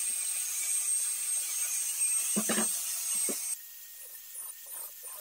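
Handheld angle grinder spinning free with a steady high whine, not cutting, with a short louder burst of noise about two and a half seconds in. It stops suddenly about three and a half seconds in, leaving faint knocks of handling.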